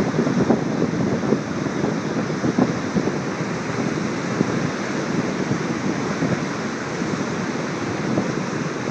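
Steady rushing of whitewater from a large river waterfall and its rapids.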